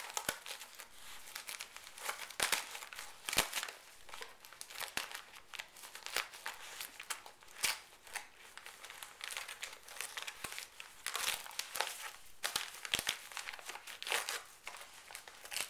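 Shiny foil gift wrap crinkling and crackling in irregular bursts as a dog noses, bites and paws at a wrapped present, tearing the paper open.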